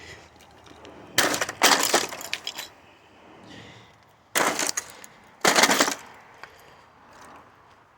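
Things being smashed and broken apart: four crashing, cracking impacts in two pairs, a few seconds apart, each followed by clattering pieces.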